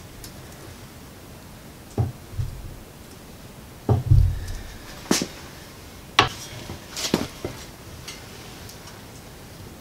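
Manual sheet metal brake bending the edges of an 18-gauge steel strip into a channel: a string of sharp metal clanks and clunks as the bending leaf and clamp bar are worked and the strip handled, with the heaviest clunk about four seconds in.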